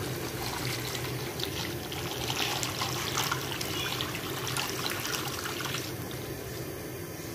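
Melted ghee pouring in a stream from a metal jug onto a heap of milk powder in a large metal kadai, trickling and splashing, easing off about six seconds in. A steady low hum runs underneath.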